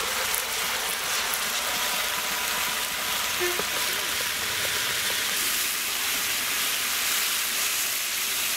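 Chopped garlic frying in hot oil in a large aluminium pot, a steady sizzle, with Korean chilli sauce just poured in.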